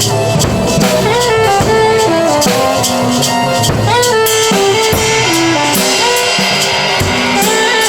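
Live band improvising: a drum kit keeps a beat under a melodic line of held, stepping notes from pitched instruments.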